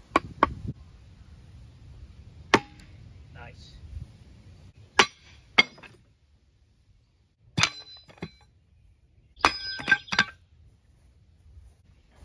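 Steel head of a Cold Steel Frontier Hawk tomahawk striking a wooden log: a series of sharp knocks and metallic clangs, three quick ones at the start and a close cluster with a ringing tone near the end.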